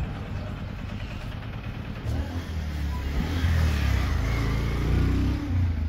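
A vehicle engine running and revving up. It grows louder about two seconds in and eases off near the end.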